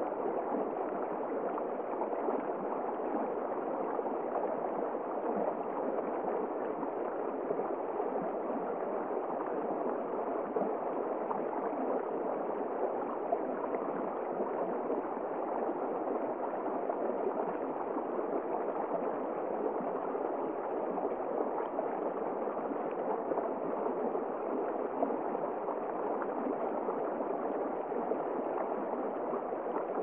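Small stream running fast over rocks: a steady rush of flowing water.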